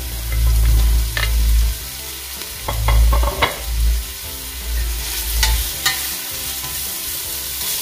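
Lemongrass stalks tipped from a plate into a stainless steel pot of onions frying in oil, then a wooden spoon stirring and knocking against the pot, several sharp knocks spread through the first six seconds. Frying sizzle runs under it, with a low rumble that stops near the end.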